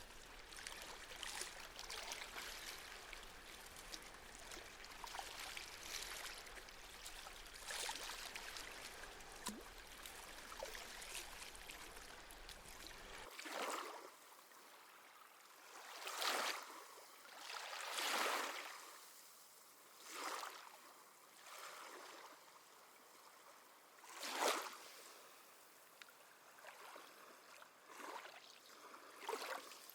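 Small sea waves lapping and splashing at the shore. About thirteen seconds in, the steady low wash cuts off and gives way to separate splashes that swell and fade every couple of seconds.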